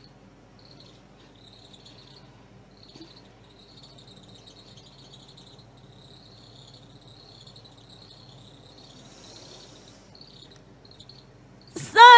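Faint high-pitched chirping of insects comes and goes over a low hum during a pause in the recitation. Near the end a woman's voice comes back in loudly, reciting the Quran in a melodic chant that rises into a long held note.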